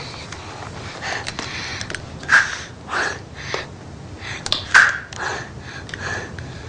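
A boy's distressed breathing: ragged gasps, sniffs and wheezy breaths, the two loudest sharp gasps about two and five seconds in.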